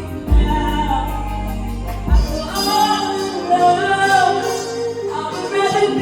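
Live band music with a singer. Heavy bass and kick drum drop out about two and a half seconds in, leaving the voice over lighter accompaniment.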